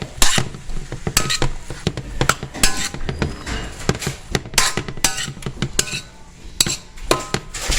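A cooking utensil knocking and scraping against a metal pot as vegetables are stirred, with repeated sharp clanks and short metallic rings.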